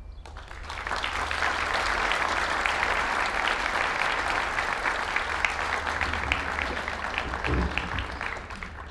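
Audience applauding; the clapping swells over the first second and dies away near the end.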